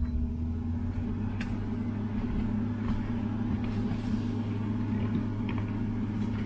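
5,000 BTU Frigidaire subcompact window air conditioner running on its fan alone, a steady hum and rush of air; the compressor has not yet kicked on.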